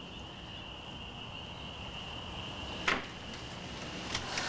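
A steady high-pitched tone under a quiet pause, with a sharp click about three seconds in and two lighter clicks near the end as a house's front door is opened.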